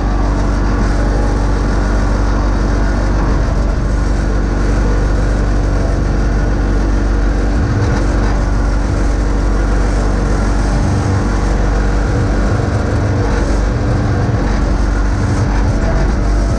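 John Deere X585 lawn tractor's V-twin engine running steadily at working speed while the tractor plows snow with its front blade.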